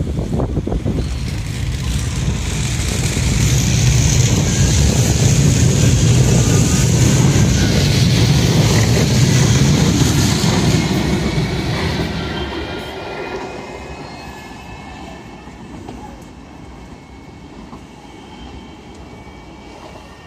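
Two coupled Manchester Metrolink M5000 trams pulling away past the platform, a loud rumble of steel wheels on rail with a hiss as the cars go by. From about twelve seconds in the sound fades as they draw off, leaving a faint whine that rises in pitch as they pick up speed.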